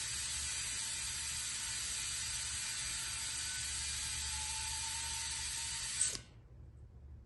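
Tire air pump running steadily as it inflates a freshly plugged tire, then stopping abruptly with a click about six seconds in.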